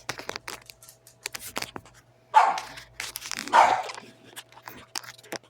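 A dog barks twice, about two and a half and three and a half seconds in, over scattered light clicks and rustles of handling.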